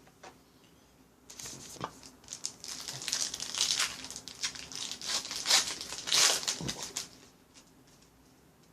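A trading-card pack wrapper being torn open and crinkled by hand, a run of rustling and sharp crackles lasting about six seconds.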